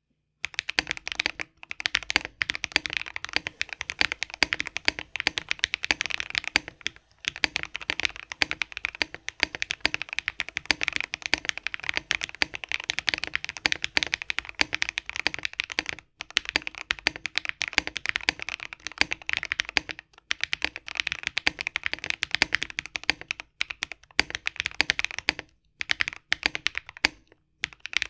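Fast, continuous typing on a Keychron K12 mechanical keyboard with lubed AKKO Blue Snow Grey linear switches and Cherry-profile PBT keycaps, giving a poppy, clacky keystroke sound, with a few brief pauses.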